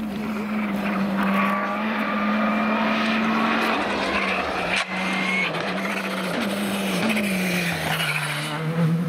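Škoda Fabia Rally2 rally car running hard on a tarmac stage, its engine holding a steady high note as it comes closer. The sound breaks off briefly about five seconds in, and the pitch sinks a little near the end.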